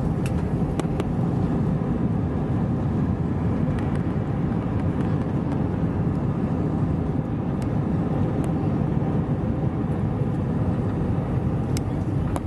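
Cabin noise of an Airbus A320 rolling on the ground after landing: a steady rumble of engines and wheels, with a few faint clicks and rattles.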